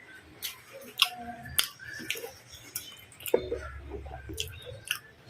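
Close-up eating sounds of a person chewing pizza: a run of sharp wet mouth clicks and smacks, several a second apart at an uneven pace.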